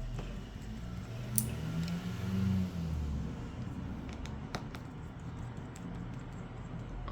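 Small, sharp clicks and ticks of a precision screwdriver and tools working on a smartphone's screws and plastic frame, over a low hum that swells about two seconds in.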